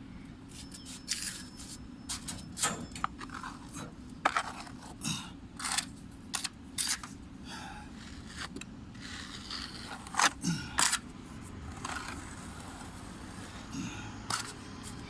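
Irregular short scrapes and sharp clicks of hands-on tool work over a steady low hum.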